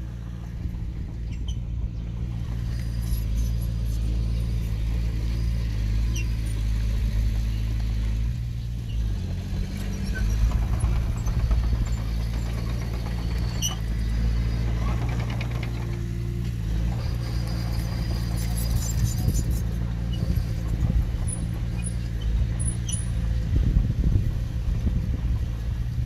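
Diesel engine of heavy earthmoving machinery running steadily, its pitch shifting about nine seconds in, with scattered light metallic clicks and squeaks above it.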